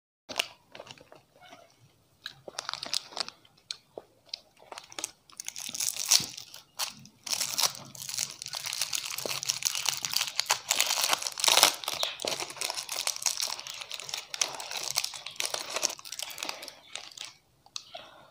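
Chocolate wrapper being crinkled and torn open by hand. A few scattered crackles come first, then a dense run of crinkling from about five seconds in until shortly before the end.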